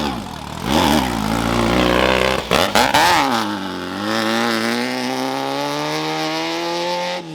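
Off-road race vehicle engine revved twice in quick throttle blips, with a brief clatter between them, then pulling steadily with its pitch slowly rising until the sound cuts off abruptly.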